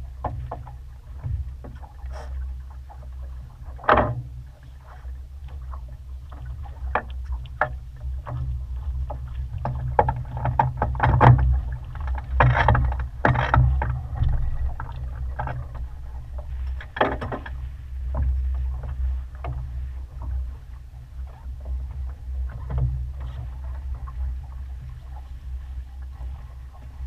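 Water rushing and slapping against the hull of a sailboat under sail, with irregular sharper splashes, the loudest about four seconds in, in the middle, and about seventeen seconds in. A steady low rumble of wind on the microphone runs beneath.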